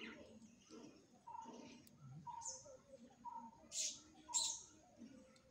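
Faint bird calls: a short whistled note repeated about once a second, with a few sharp higher chirps. The loudest chirps come a little before the end.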